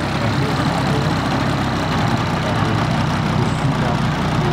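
Hornet HE125 125cc gas engine of a large RC model plane running steadily at low throttle, an even, unchanging engine note.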